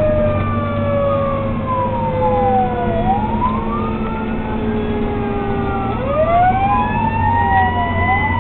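Fire engine sirens wailing, several tones sweeping slowly up and falling again every few seconds and overlapping, over the steady low drone of the fire truck's engine.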